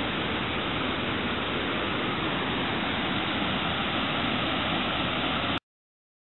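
Steady rushing of flowing water, an even hiss with no rhythm, which cuts off abruptly about five and a half seconds in.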